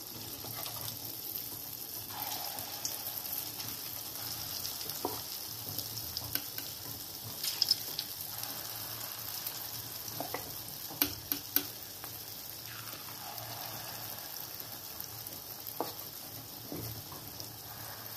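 Moong and urad dal vadas deep-frying in hot oil in an iron kadhai: a steady sizzle with a few sharp ticks scattered through it.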